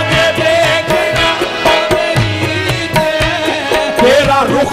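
Qawwali accompaniment without singing: a tabla rhythm under steady held harmonium notes. A voice comes back in near the end.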